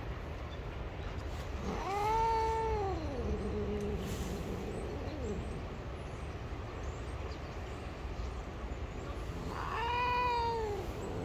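Domestic cat giving two long, drawn-out meows several seconds apart, each rising then falling in pitch. These are an annoyed cat's complaint at being touched.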